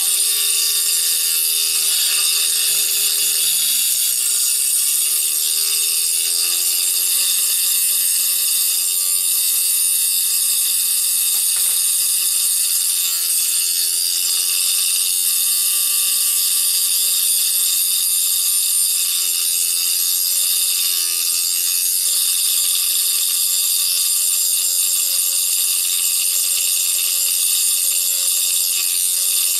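An opened 1997 Fujitsu 2.4 GB hard drive runs with its damaged read-write head on the scratched, pitted platters, making a loud, steady, high-pitched mechanical noise. Lower tones waver in the first few seconds and twice more later. This is the sound of a ruined drive.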